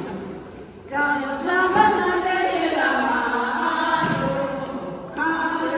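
A group of voices singing together. A sung line comes in about a second in and holds to just past five seconds, breaks briefly, then the next line begins.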